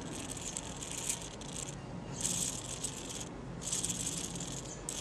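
Futaba servo running with its gearbox open, the freshly replaced plastic gear train whirring and rattling as it turns. The sound comes in four runs of about a second each, with short pauses between them.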